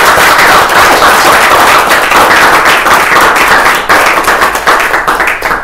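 A room full of people applauding: a dense round of clapping that thins into separate claps near the end.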